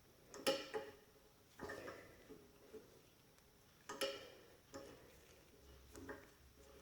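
A dull 1/4-20 tap being turned by hand through a flat bar: sharp metallic clicks and short scraping creaks at uneven intervals as the tap cuts and the chips break.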